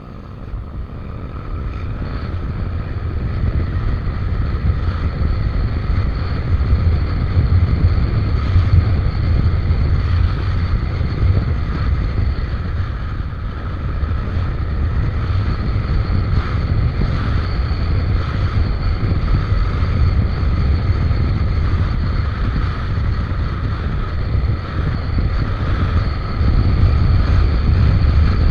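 Wind buffeting the microphone over the running engine and road noise of a Suzuki Avenis scooter on the move, getting louder over the first few seconds and then holding steady.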